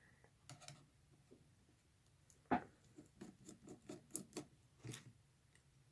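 Light clicks and taps of a screwdriver and small metal parts as screws are backed out of the brush plate on a Lionel 221 locomotive's motor. The screws are loose and come out easily. There is one sharper click about two and a half seconds in, then a quick run of small ticks.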